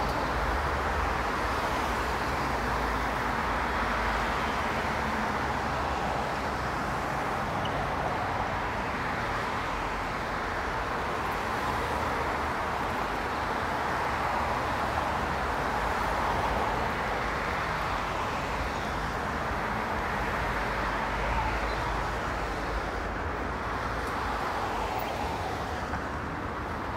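Road traffic on a multi-lane city street: cars passing one after another, a continuous wash of tyre and engine noise that swells and eases as each group goes by.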